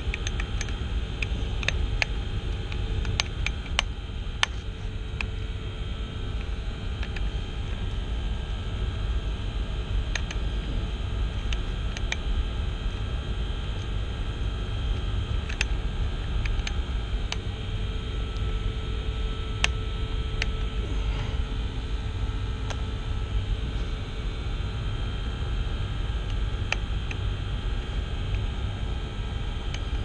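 Steady rumble and hiss of running HVAC machinery, with scattered small clicks as a valve actuator's circuit board is handled.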